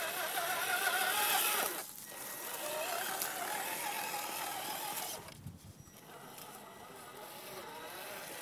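Radio-controlled scale crawler truck's electric motor and gears whining as it crawls over dirt and rocks, the pitch wavering with the throttle. It cuts out briefly about two seconds in, runs again until about five seconds, then goes on more faintly.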